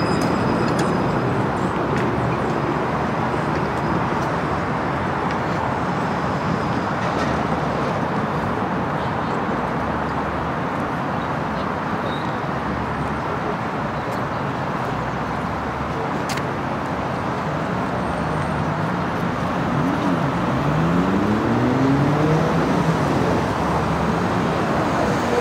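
Street traffic noise as a tram rolls in along the rails and pulls up at a stop. About three-quarters of the way through, a motor whine glides down in pitch and then rises again.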